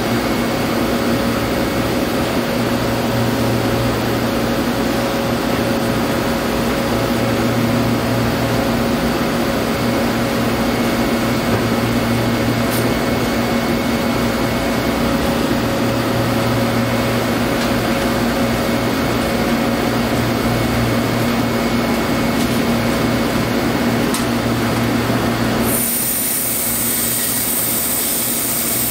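Steady rush of cleanroom ventilation and wet-bench exhaust air with a constant low hum. Near the end the hum falls away and a high-pitched whine comes in.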